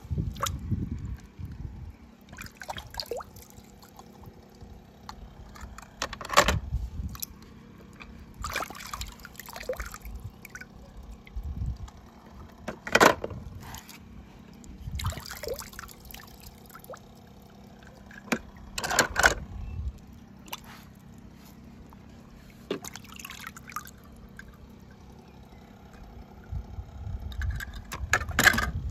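Toy cars splashing into water several times, a few seconds apart, with trickling and dripping water between the splashes.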